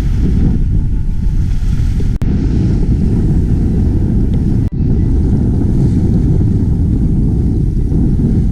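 Wind buffeting the microphone with a loud, steady rumble aboard a sailing yacht under way, with water noise mixed in. The sound drops out briefly twice, about two and four and a half seconds in.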